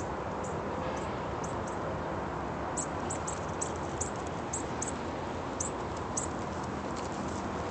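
Light, sharp clicking from a dog walking on a leash along a concrete path, a few clicks a second through the middle, over steady background noise.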